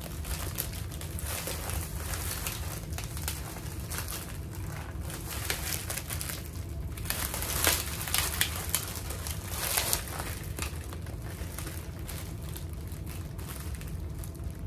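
Plastic wrapper of a bag of sandwich cookies crinkling as it is handled and turned over, with a run of louder crackles from about seven to ten seconds in.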